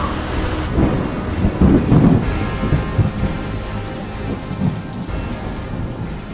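Heavy rain with rolling thunder, the thunder loudest about one and a half to two seconds in and then easing off.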